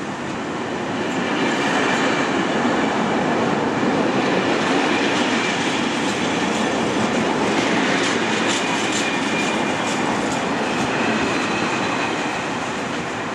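Container freight train's loaded wagons rolling past close by: a steady rumble of wheels on rail, growing louder about a second in. Rhythmic clatter over the rail joints comes in the second half, with a thin high ringing tone from the wheels.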